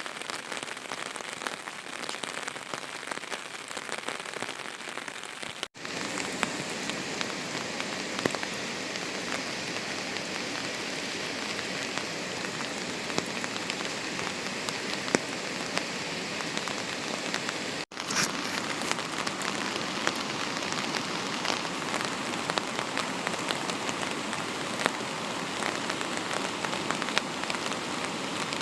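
Steady rain falling, with scattered drops ticking sharply on a surface. The sound drops out for an instant twice, about 6 and 18 seconds in.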